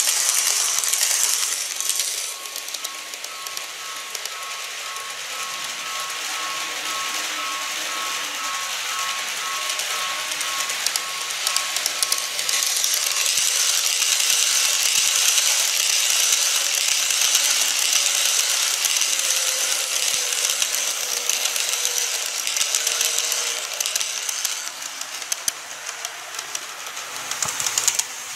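KATO N-scale model electric trains running on track: a steady rattle of wheels over rail joints and points. It grows louder as a 701 series set passes close at the start, and again as an E531 series set passes for a stretch in the middle. Between them there is a faint steady whine.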